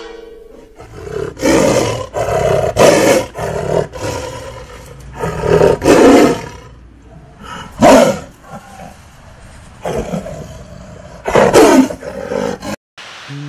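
Tiger roaring and snarling again and again: a series of loud roars a second or few apart, some of them falling in pitch.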